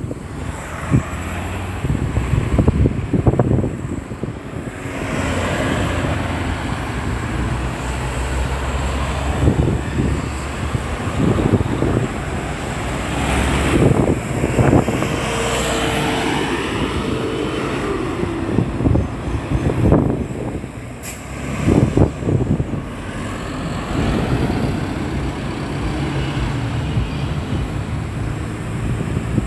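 Road traffic at a busy roundabout: vehicles passing close by one after another, their engines and tyres swelling and fading over a steady rumble.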